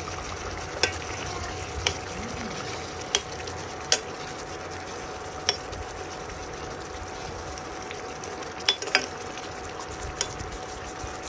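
A spoon stirring fish curry in a steel pot, knocking against the pot in about eight sharp clinks, two in quick succession near the end. A steady hiss and hum runs underneath.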